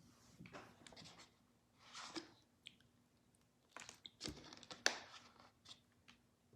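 Faint rustling, crinkling and light ticks of packaging and cards being handled on a table, in short scattered bursts with a faint steady hum under them.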